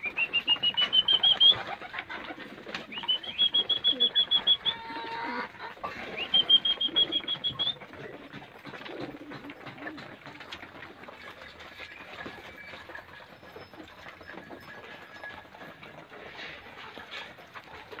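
A flock of pigeons feeding on a loft floor, with pecking clicks and wing flutters. Three times in the first eight seconds a loud, rapid, high trill rises in pitch and then holds; it is the loudest sound here.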